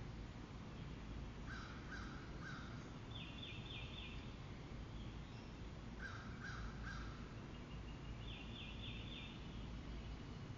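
Distant birds calling: a set of three short calls followed by a quick run of four higher notes, the same pair of phrases coming twice, over a steady low rumble.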